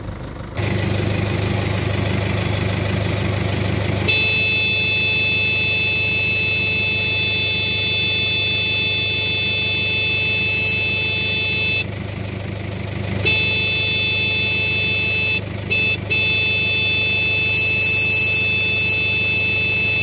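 Vehicle horn held down in long steady blasts over a running engine, sounded to scare a flock of birds off the field. After about eight seconds of continuous horn it stops for a second and a half, then sounds again with two short breaks.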